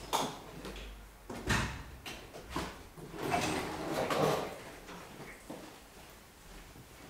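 Door handling and footsteps in a tiled hallway: a few sharp knocks and clatters in the first three seconds, a longer scraping rustle around four seconds in, then softer footsteps.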